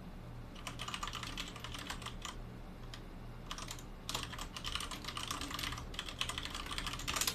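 Fast clicking of keys typed on a computer keyboard, in runs with short pauses, from about half a second in until just before the end, over a steady low hum.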